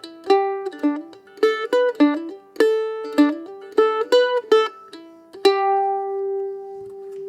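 Closing music: a tune of short plucked-string notes that ends on a single note, struck about five and a half seconds in and left to ring and fade.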